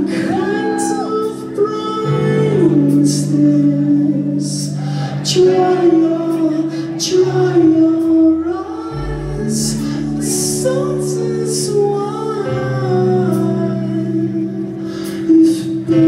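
Rock band playing live: a singer's voice over held guitar chords, bass and drums with crisp cymbal strokes, a deep bass note coming in about halfway through. Heard from a balcony through a phone's microphone, with the hall's reverberation.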